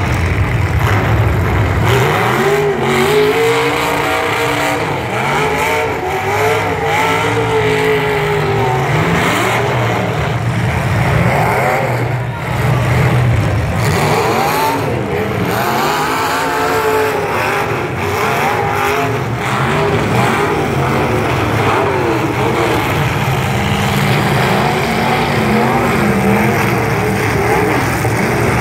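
Engines of demolition derby trucks revving up and down, loud and continuous, several overlapping at once.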